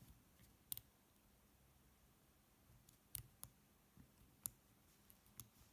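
A few faint, scattered clicks from the number wheels of a small combination padlock as they are turned by hand, one notch at a time, to feel for the combination.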